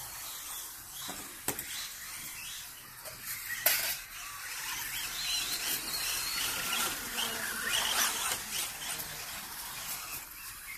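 Electric 1:10-scale RC rally car running the course: a thin, high motor whine that rises and falls over a steady hiss of tyres on the court surface. A lighter click comes about a second and a half in, and a sharp knock, the loudest sound, a little before four seconds in.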